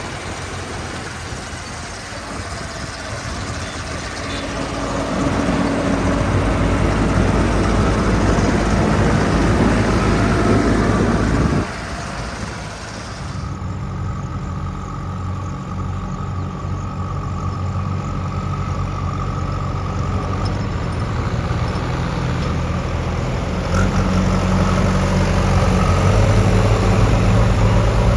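Heavy diesel engines of earthmoving machinery running and working: the sound swells gradually through the first dozen seconds, drops suddenly to a steadier, lower run, and changes abruptly again a couple of seconds later.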